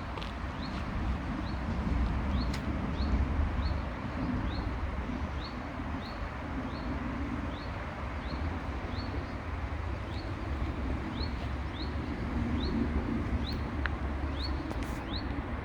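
A small bird repeating a short, high, upward-sliding chirp about twice a second, over a steady outdoor rushing noise with a low rumble.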